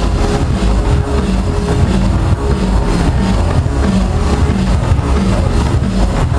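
Loud dance music from a DJ set over a club sound system, with heavy bass and a steady beat.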